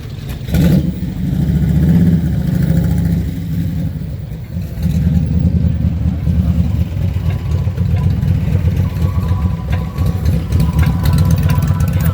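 Loud car engine rumble that swells as the engine revs in the first couple of seconds, then settles into a steady, pulsing run.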